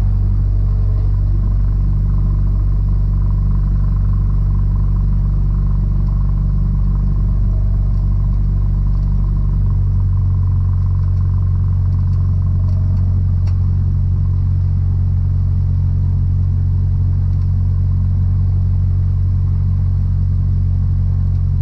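Cessna 172 Skyhawk's four-cylinder piston engine running with a steady drone in the cockpit. About ten seconds in, the tone of the drone shifts as the engine power changes.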